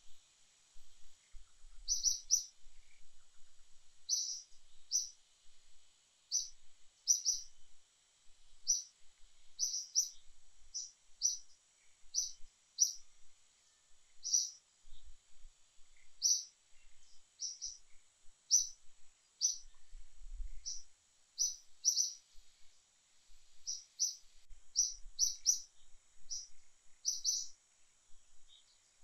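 A bird repeating short, high chirps, often in quick pairs, about once or twice a second, over a faint steady high-pitched hiss.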